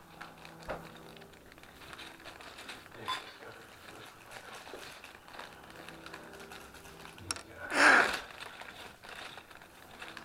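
Plastic Lego bags rustling and loose Lego pieces clicking softly as they are handled and sorted, with one louder half-second sound about eight seconds in.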